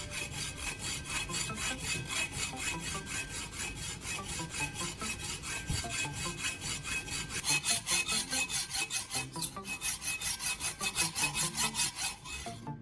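Rapid back-and-forth scraping strokes on a spark plug's ceramic insulator, as it is cut or worked down by hand. The strokes come several a second and grow quicker and more even about seven seconds in, then stop near the end.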